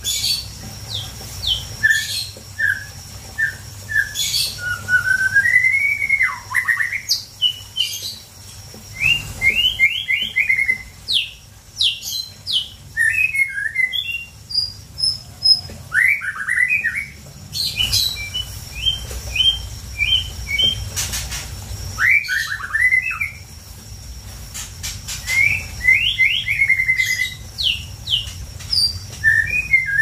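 White-rumped shama (murai batu) singing: varied clear whistled phrases, some notes gliding up and down, mixed with quick runs of sharp high notes, in phrases with short pauses between them.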